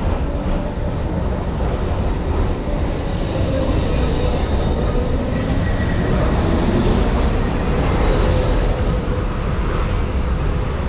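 Ride noise of an old museum tram running along street track: a steady, loud rumble of the wheels and running gear on the rails.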